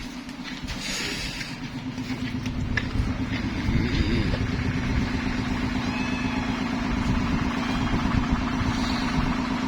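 An engine running steadily at a constant speed, getting a little louder over the first few seconds and then holding even.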